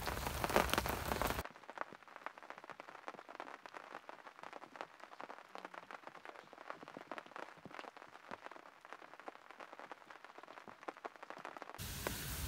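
Charred corn husks rustling and crackling close up for the first second and a half, then a quiet stretch of faint scattered ticks. Near the end a loud steady hiss starts as water is poured onto the hot campfire coals and turns to steam.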